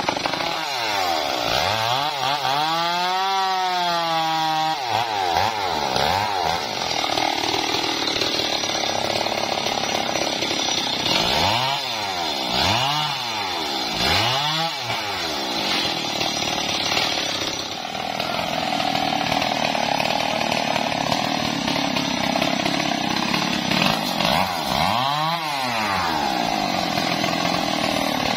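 Stihl MS 381 chainsaw, a two-stroke of about 72 cc, running continuously while cutting felled limbs. Its engine pitch rises and falls in throttle swells: near the start, twice around the middle, and again near the end.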